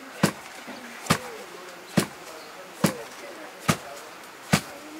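Loud thuds struck in a steady rhythm, a little under one a second, six in all, with faint voices in the background.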